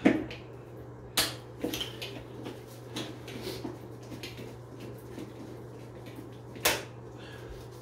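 Metal clicks and clinks from hand work on a bathtub's overflow cover plate and its screws: three sharp ones near the start, about a second in and near the end, with lighter ticks between. A steady low hum runs underneath.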